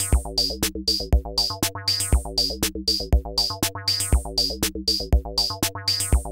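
Electronic music: a drum-machine beat with a heavy kick about once a second and sharper high strokes between, over sustained synthesizer notes.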